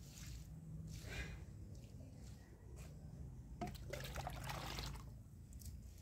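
Water poured from a long-handled dipper onto garden plants, splashing on leaves and soil: a short pour about a second in, then a longer one from just past halfway to near the end.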